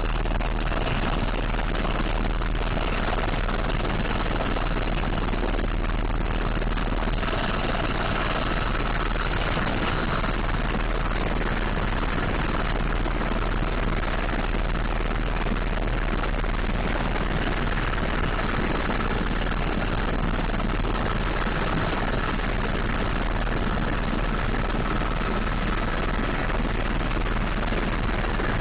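Tour helicopter in steady flight, heard from on board: a constant, unbroken rotor and engine noise with a deep low rumble and a faint high whine.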